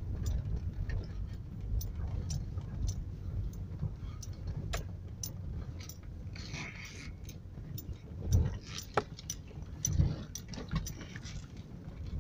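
Inside a vehicle driving slowly over a rough dirt track: a steady low rumble of engine and road, with many sharp rattles and clicks from the cabin, and two heavier thumps about eight and ten seconds in as it bumps over the ruts.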